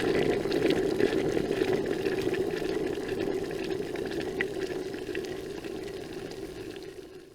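Water starting to boil: a steady low rumble with many small bubbles popping and ticking over it, fading out over the last few seconds.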